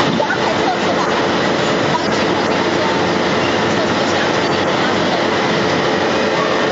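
Factory production-line machinery with a wire-mesh conveyor belt running, making a steady, even noise.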